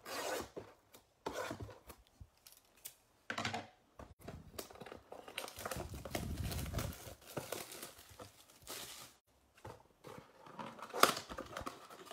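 Plastic wrap being torn off a Rookies & Stars football card blaster box and crinkled, with the cardboard box and packs handled in irregular rustling bursts; a single sharp snap about eleven seconds in.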